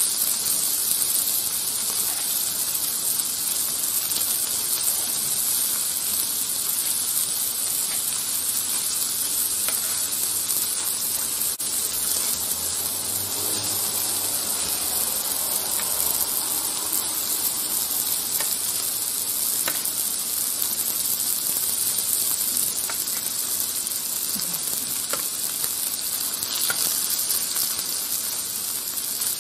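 Sliced marinated beef and mushrooms sizzling steadily on a hot domed grill plate, with a few faint pops.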